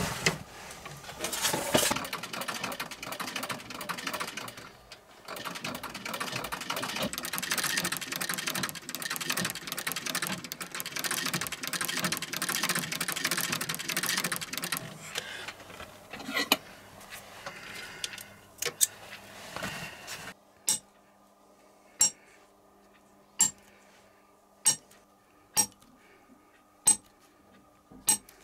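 An old industrial sewing machine runs for about fifteen seconds, stitching a leather shoe upper, then stops. After a few scattered clicks, a hole punch is struck through leather: sharp single taps, roughly one a second.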